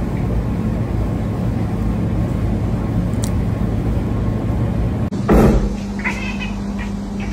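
Cat chattering at prey it is watching: a quick run of short clicking chirps about a second after a loud short sound, following several seconds of steady low hum.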